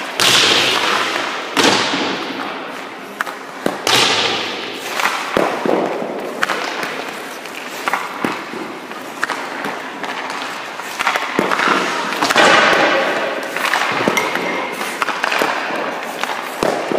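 Hockey pucks being sent in at a goalie: irregular sharp clacks of stick on puck and puck on goalie pads, about one every second or two, with scraping on the ice between them.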